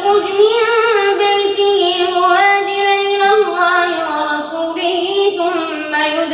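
A boy chanting Quran recitation with tajwid melody into a microphone, drawing out long held notes with small ornamental turns and stepping down in pitch partway through.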